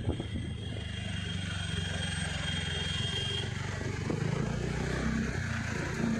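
TVS Ntorq scooter running at a steady speed with two-up riders, heard from the pillion: a steady low engine drone with road noise, and a faint high whine that stops about halfway through.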